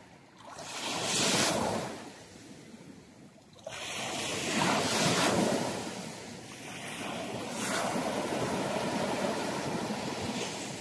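Small Baltic Sea waves breaking and washing up a sandy beach, the rush of surf swelling and fading every few seconds.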